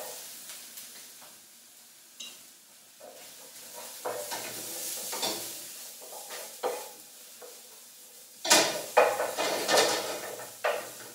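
Chopped vegetables sizzling in oil in a frying pan while a utensil stirs and scrapes them around the pan, with a louder run of scraping and clattering against the pan about two seconds before the end.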